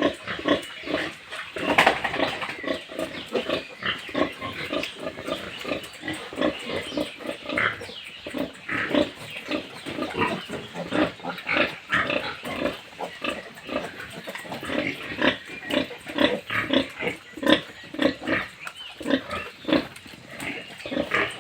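A pen of farmed pigs calling over one another: short grunts and squeals, several a second, with no let-up.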